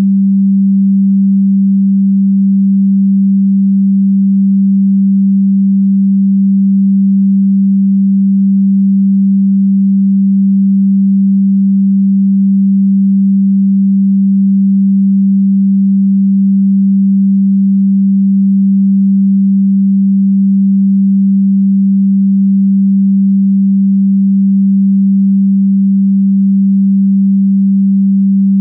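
A single electronically generated pure tone, low and steady, held without any change in pitch or loudness.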